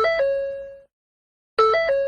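Ford door-open warning chime: a short electronic three-note pattern whose last note rings on and fades, repeating a little under every two seconds. One full chime sounds, and the next begins near the end.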